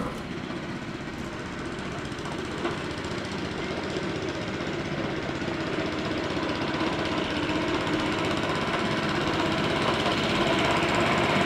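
Small petrol engine of a 7¼-inch gauge hydrostatic-drive miniature locomotive running steadily while under way, growing gradually louder over the seconds.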